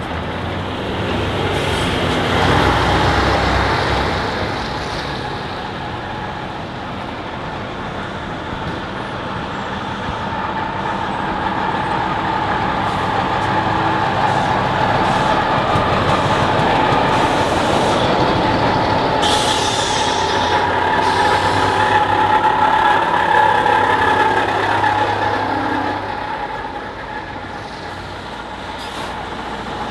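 Heavy army convoy trucks drive past one after another, their diesel engines and tyres growing louder as each vehicle goes by. A steady whine runs through the middle of the passing, and a short hiss comes about two-thirds of the way through.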